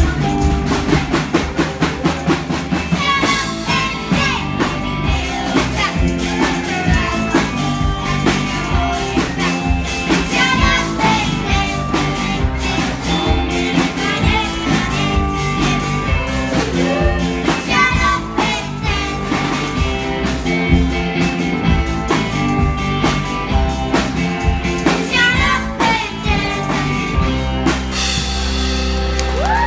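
Children singing a rock song with a live band of drum kit and electric guitar, the drums keeping a steady beat. Near the end the drums stop and the band holds a final chord.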